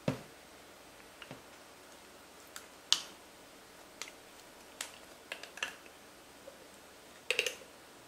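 Irregular sharp clicks and taps of a glass jar and a plastic spoon being handled on a tabletop while thick slime is scraped out of the jar, with a duller knock at the start as the jar is tipped over, the sharpest click about three seconds in, and a quick cluster of clicks near the end as the slime slides free.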